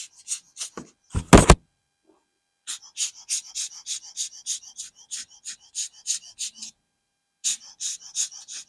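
Smiths Empire pocket watch movement ticking at a quick, even pace of about five ticks a second. It pauses briefly near the end and starts again. A single heavy knock of handling comes about a second in.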